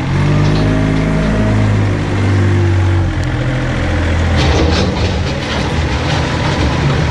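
Engine of a Thaler 2136K compact wheel loader running as it drives and works its bucket, its note shifting about three seconds in. Rattling knocks come in over it in the second half.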